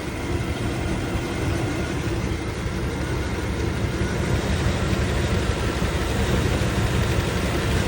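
2000 Chevy Tahoe's V8 engine idling steadily with a little shake to it, which the owner suspects could be spark plugs and wires or motor mounts.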